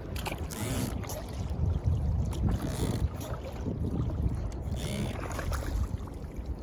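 Wind rumbling on the microphone over water splashing around a small rowed dinghy.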